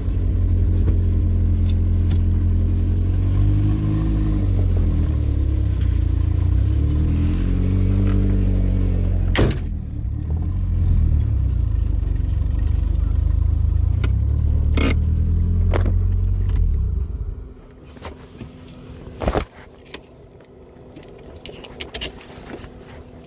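Volkswagen car engine running while being parked, its speed rising and falling twice, with a few sharp clicks. It is switched off about seventeen seconds in, leaving only faint clicks and handling noises.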